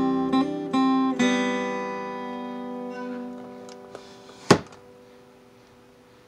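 Acoustic guitar playing a few last plucked notes, then a final chord left ringing and slowly fading out. About four and a half seconds in comes a single sharp click.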